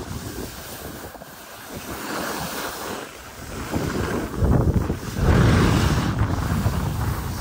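Skis sliding and scraping over packed snow, with wind buffeting the microphone. It grows louder a little past the middle and stays loud until near the end.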